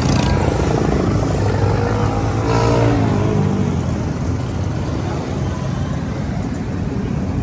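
A steady low engine hum, with something briefly louder and changing in pitch about halfway through.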